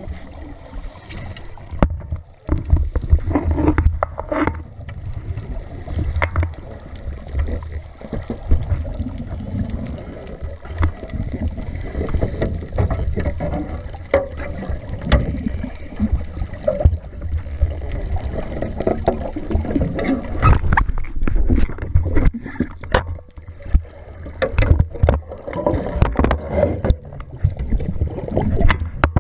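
Muffled underwater sound from a diver's camera housing: a low, uneven rumble with gurgling bubbles from a scuba diver's exhalations and scattered small clicks.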